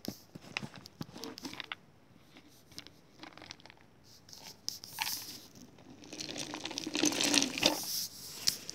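A few small clicks from the plastic screw lid of a peanut jar being handled, then a crinkling rattle of roasted peanuts tipping and sliding out of the clear plastic jar, loudest about six to eight seconds in.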